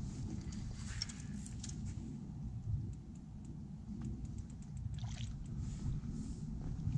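Water splashing and sloshing as a hooked carp swirls at the surface near a landing net in the shallows, with small clicks over a steady low rumble on the microphone.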